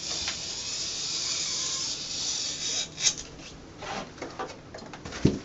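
Utility knife blade drawn through peel-and-stick mural material along a wall corner, trimming off the excess: a steady rasping hiss for nearly three seconds, then scattered rustles and clicks, and a short thump near the end.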